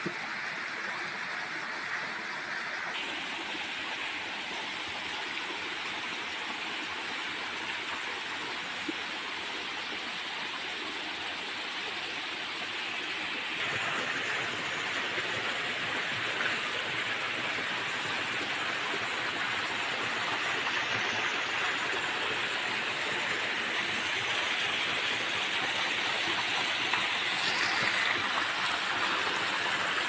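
Water of a small waterfall and stream rushing over rocks, a steady hiss that grows louder about halfway through.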